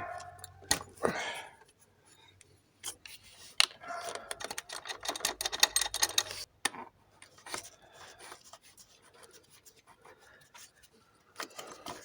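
Hand tools working metal fittings while the high-pressure fuel line comes off a common-rail diesel pump: scattered clicks, knocks and light scraping, with a run of rapid ticking around the middle.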